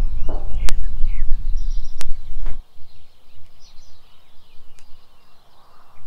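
A low rumble with three sharp knocks during the first two and a half seconds, then garden birds chirping in the background.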